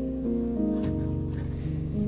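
Soft instrumental background music, a melody of held notes over chords that change about every half second.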